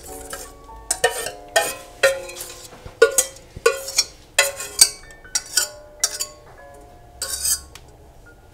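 Wire whisk clinking and scraping against a stainless steel bowl as thick liquid batter is scraped out of it, a quick irregular series of sharp metallic strikes, each with a brief ring. They stop near the end.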